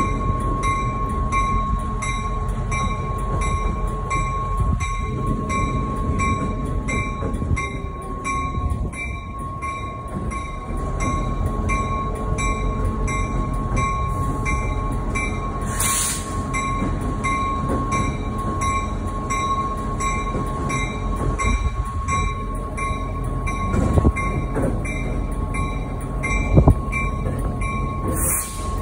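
CSX diesel locomotive running slowly along street track, its engine rumbling steadily while its bell rings in an even rhythm. There are two short hisses, one about halfway through and one near the end.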